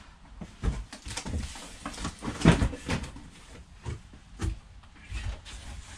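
Items and boxes being handled: a run of irregular knocks and clatters with rustling between them, the loudest knock about two and a half seconds in.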